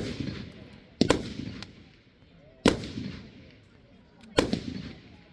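Display fireworks bursting overhead: four loud bangs about one to one and a half seconds apart, each trailing off in a rumbling echo.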